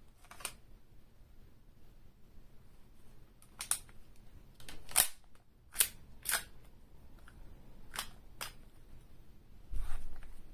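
Airsoft gun being reloaded by hand: a series of sharp plastic-and-metal clacks from the magazine, slide or action being worked. The two loudest come about five and six seconds in, and a duller knock comes near the end.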